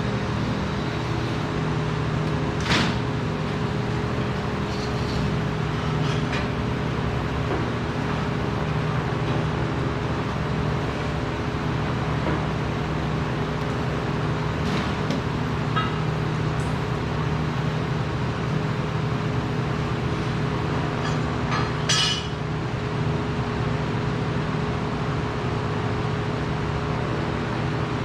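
Steady drone of workshop machinery in a welding fabrication shop, with a few sharp metal clinks, the loudest near the end.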